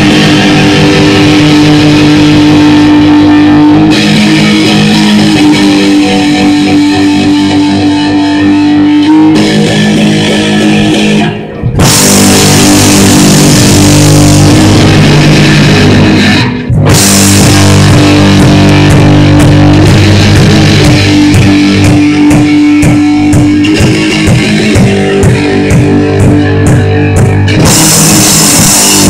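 Live rock band playing loud, with electric guitars and a drum kit; the music breaks off briefly twice near the middle before the full band comes back in with cymbals.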